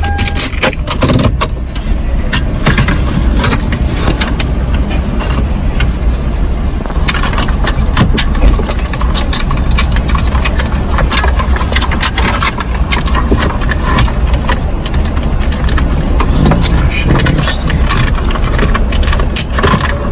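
1999 Lexus RX300's V6 engine idling steadily, with scattered clicks and scrapes of dashboard trim and radio parts being handled.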